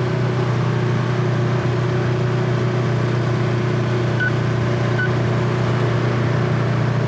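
Side-by-side UTV engine running at a steady pace while driving, a constant low drone with no change in speed. Two faint short high beeps sound about a second apart near the middle.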